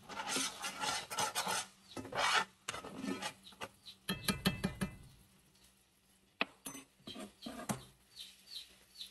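Metal spoon scraping and stirring onions around a cast iron skillet in repeated strokes. The stirring stops about halfway through, and a single sharp click follows.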